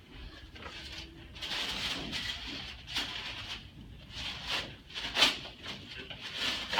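Irregular rustling and shuffling of people and fabric moving on a chiropractic treatment table, with one sharper knock about five seconds in.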